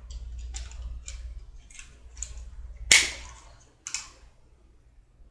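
Small metal parts of a trigger airbrush clicking and scraping as they are worked apart by hand: a string of light clicks, then one sharp metallic click about three seconds in and a lighter one a second later.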